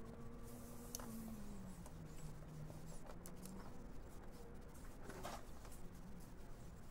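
Faint, light clicks and handling noises from small carburetor parts being worked by hand, over a quiet background. A faint low hum falls in pitch and rises again during the first few seconds.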